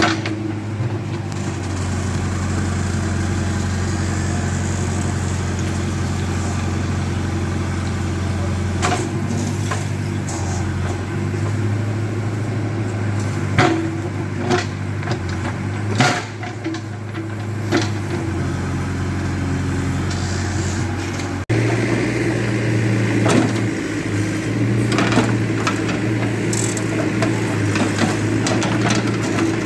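JCB backhoe loader's diesel engine running steadily under work, with a few sharp knocks and clatters around the middle. The engine note shifts abruptly about two-thirds of the way through.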